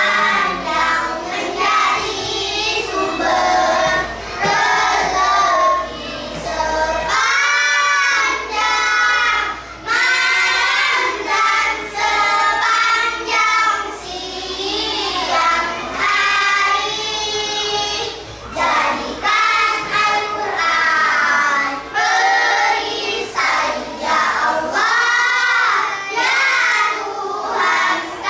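A class of young children chanting a prayer together in a sing-song melody, line by line with short breaks between phrases.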